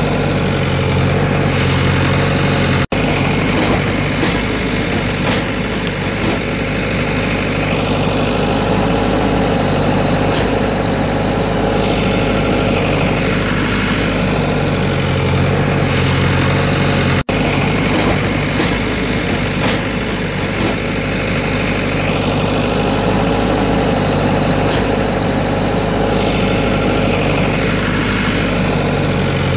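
Heavy-machinery engine sound running steadily, with a sweep that repeats about every six seconds like a looped track. It cuts out for an instant twice.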